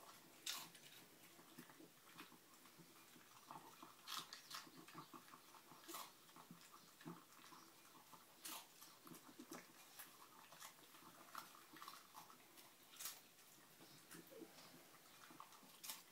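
Dog eating from a bowl: faint continuous chewing and mouth noises, with a few sharper clicks spread through.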